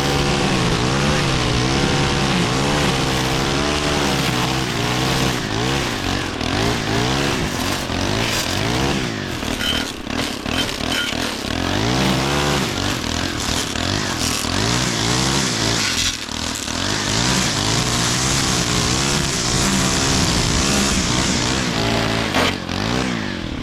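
Stihl gas string trimmer engine running hard, its pitch rising and falling again and again as the throttle is worked while cutting tall grass; it cuts off near the end.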